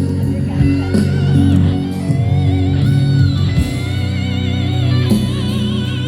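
Rock band music: an electric lead guitar plays long notes with a wide vibrato over steady bass and accompaniment.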